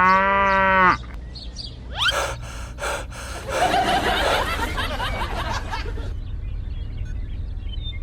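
A person's voice: a loud drawn-out exclamation in the first second, then gasp-like noisy breaths a few seconds in, over a low steady hum.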